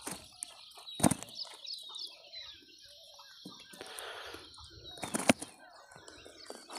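A freshly caught fish flapping and slapping while being handled, with two sharp knocks, one about a second in and one near the end, and softer rustling between.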